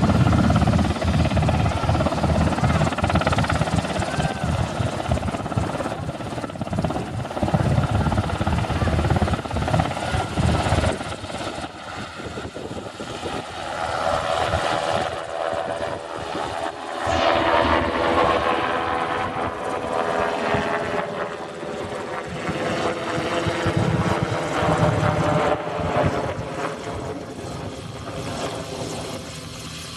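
Sikorsky S-70 Firehawk helicopter lifting off and climbing away overhead. For about the first eleven seconds there is a heavy low rotor beat with rushing noise from the takeoff. After that the low beat eases and the turbine whine stands out as the helicopter passes over, fading near the end.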